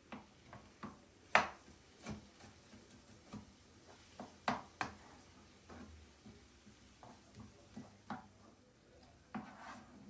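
Irregular light clicks and knocks of objects being handled and set down, with one sharper knock about a second and a half in.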